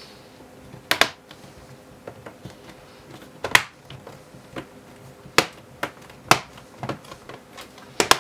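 Plastic clips of a laptop's base cover snapping into place as the cover is pressed down around its edges: a series of sharp, irregularly spaced clicks, the loudest about three and a half seconds in and just before the end.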